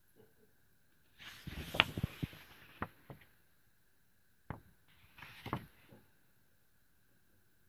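Pages of a hardcover picture book being turned and handled: a paper rustle with sharp crackles about a second in, then a click and a shorter rustle near the middle.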